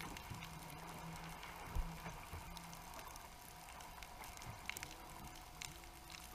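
Underwater ambient sound picked up through a GoPro housing: scattered sharp clicks and crackles throughout, under a low steady hum that fades out about three seconds in. A single dull low thump about two seconds in is the loudest sound.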